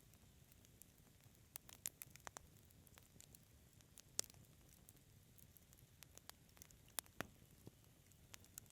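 Quiet wood fire crackling: scattered sharp pops and snaps over a soft low hiss of burning, with the loudest pops about four seconds in and again near seven seconds.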